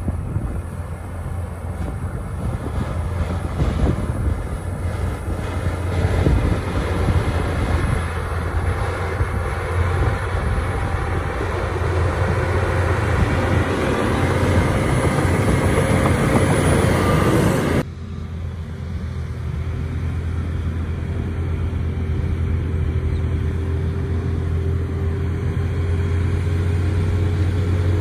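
A Shantui DH17 C2 crawler bulldozer's diesel engine works hard under load as the blade pushes dirt and stone, over a dense rattle of tracks and spoil. About two-thirds of the way through, the sound changes abruptly to a steadier diesel engine with a thin, steady whine.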